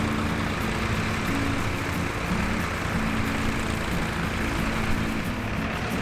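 Tractor engine running steadily while ploughing, a low rumble, with a low tune of short held notes changing pitch every half second or so over it.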